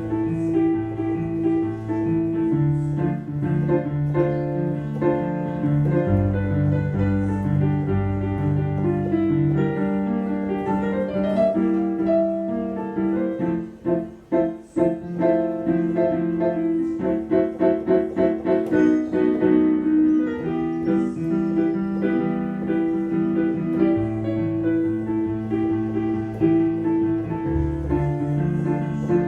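Roland XPS-10 keyboard playing a forró tune: a held melody over a moving bass line, with several seconds of rapidly pulsing chords around the middle.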